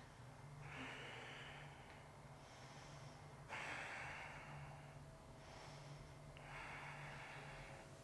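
A person breathing slowly and faintly: three audible breaths about three seconds apart, each lasting over a second.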